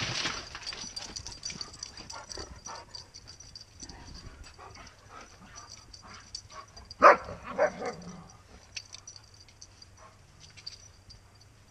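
A dog barks twice in quick succession about seven seconds in, the first bark the loudest sound; otherwise there is scattered light rustling and clicking.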